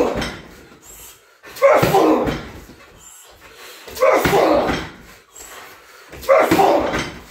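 Shin kicks and strikes landing on a 60 kg heavy bag: a heavy thud right at the start, then three more about two seconds apart, each dying away over a second.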